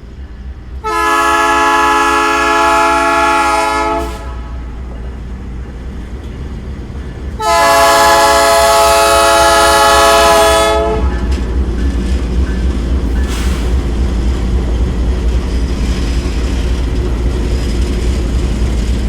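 Locomotive horn sounding two long blasts, each about three seconds, a chord of several tones. A steady low rumble of the passing train follows.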